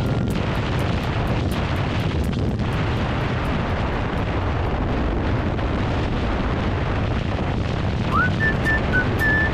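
Wind buffeting the microphone while riding, a steady low rumble. About 8 seconds in, a whistled melody from the background music comes in.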